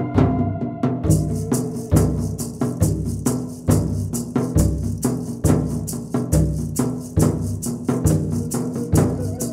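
Background music with a steady drum beat, a deep stroke a little under once a second with quick clicks between.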